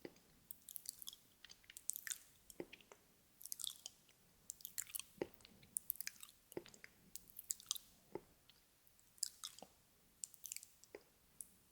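Close-miked ASMR mouth sounds: irregular wet clicks, smacks and nom-nom chewing noises, several a second with short pauses between clusters.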